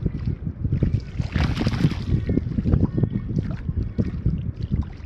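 Wind buffeting the microphone in a steady, rough rumble, with a burst of splashing in shallow water about a second and a half in.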